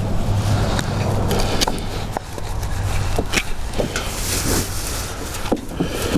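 Scattered sharp metal clicks and taps as pliers and wire are worked against the steel bars of an IBC tote cage, over a steady low rumble.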